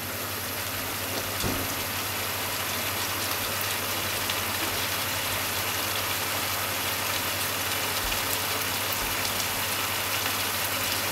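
Pork and onion stir-fry simmering in its sauce in a frying pan, a steady crackling sizzle over a low steady hum.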